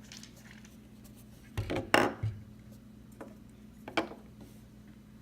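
Camera packaging being handled: hard plastic pieces clatter and rustle in a short cluster about a second and a half in, with another brief knock around four seconds, over a faint steady hum.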